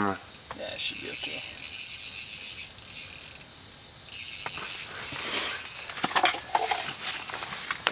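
Spinning reel on a light ice-fishing rod clicking and ratcheting while a hooked lake trout is played on 4-pound line, with a cluster of clicks about six seconds in.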